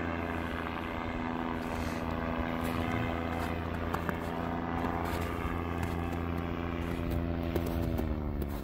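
Paramotor engine and propeller droning steadily in flight, the pitch dropping slightly near the end.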